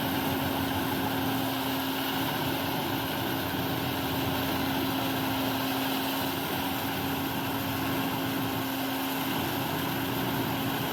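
Eschelbach Biber 92 RBM wood chipper running steadily: a constant hum of engine and rotor under an even rushing noise.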